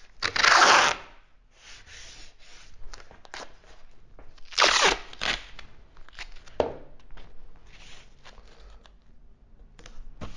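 Masking tape pulled off the roll in two long rips, about a second in and again near five seconds, with shorter tears and paper rustling between as the tape is pressed down onto a paper plan.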